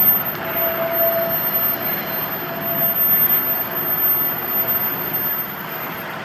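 1951 St. Louis Car Co. PCC streetcar running along its track, a steady rolling noise with a faint tone from about half a second to three seconds in.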